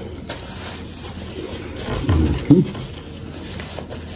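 Eating sounds at a table: soft rustling as a paper napkin is handled and wiped across the mouth, with chewing, and a brief low voiced sound about two seconds in.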